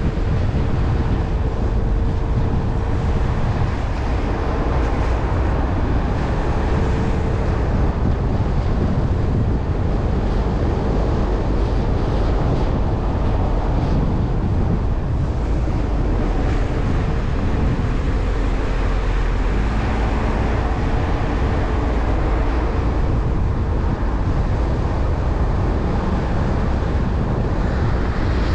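Steady low rumble of a Jeep driving on a cleared road: engine and tyre noise mixed with wind buffeting the microphone.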